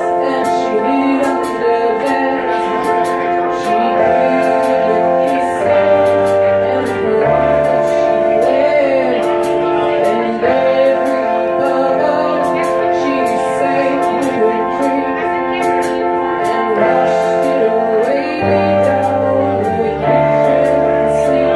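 Live rock band playing: a woman's lead vocal over sustained keyboard chords, electric bass notes and a drum kit with a steady run of hi-hat ticks.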